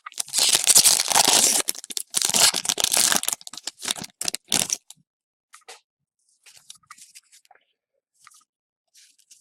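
Trading card pack wrapper being torn open in two long rips, followed by short crinkling crackles of the wrapper, then faint rustling.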